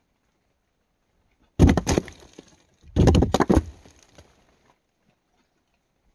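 Two short bursts of knocks and cracks, about one and a half seconds apart: something solid being struck or broken. The first burst comes a little over a second and a half in, the second about three seconds in.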